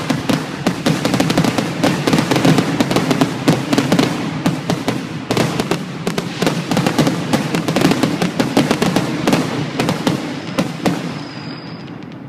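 Aerial fireworks bursting in a rapid barrage, dense overlapping cracks and booms. It thins out and fades near the end.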